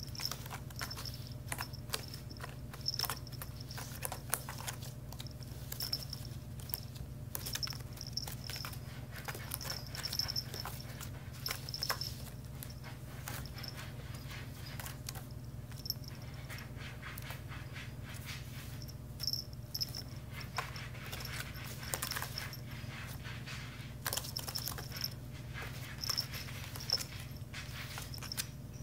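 A kitten's claws and paws scratching and scrabbling on a woven basket as it chases its own tail: many quick, irregular rustling clicks over a steady low hum.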